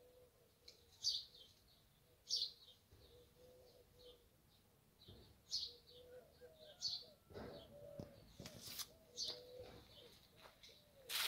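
Garden birds: a songbird giving short, sharp, falling chirps every second or two, with a dove cooing faintly and low underneath.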